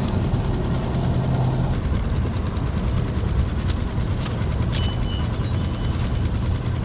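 Small outboard motor of a micro skiff running steadily, a low even drone, with faint light clicks over it.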